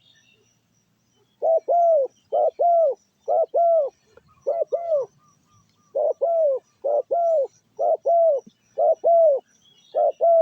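Trained decoy dove cooing: loud, low, rounded coos in quick pairs, repeated about once a second after the first second and a half, with a brief pause midway.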